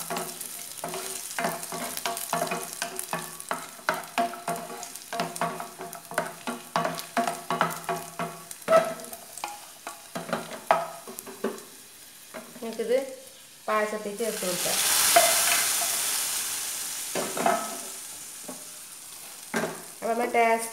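Cashews and raisins frying in hot fat in a small pan, with a spoon scraping and clicking against the pan as they are stirred, over a steady hum that stops about twelve seconds in. About fourteen seconds in, a loud sizzle as the hot fat and fried nuts are poured over the payasam.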